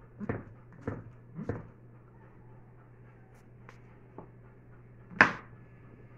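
Kitchen knife slicing button mushrooms on a plastic cutting board: three knocks about half a second apart in the first second and a half, then a couple of faint taps and one sharp, loud knock near the end.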